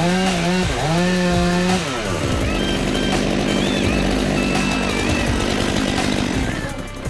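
Chainsaw engine running at high revs with a few brief dips in pitch, then dropping in pitch about two seconds in and running rougher until it fades near the end.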